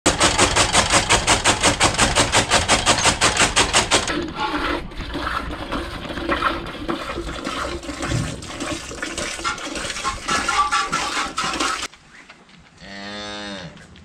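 A chaff cutter chopping green fodder, a fast even run of sharp chopping strokes for about four seconds. Near the end a cow moos once.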